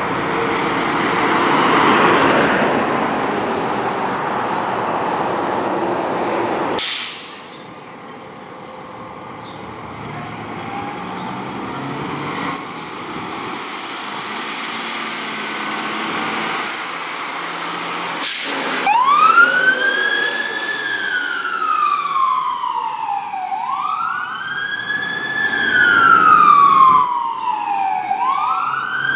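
Fire truck response with sirens. It opens on loud truck and road noise with a held siren tone, broken by two abrupt cuts. In the last third an electronic wail siren sweeps up and down, about every four to five seconds.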